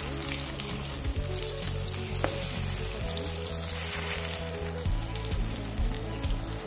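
Masoor dal dumplings deep-frying in hot oil in a metal kadhai: a steady sizzle as they are turned with a slotted spoon, with one sharp knock about two seconds in.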